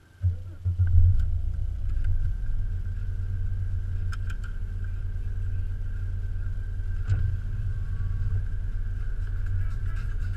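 A car engine starts about a quarter second in, revs briefly, and settles into a steady low idle, heard from inside the cabin. A few light clicks sit over the idle.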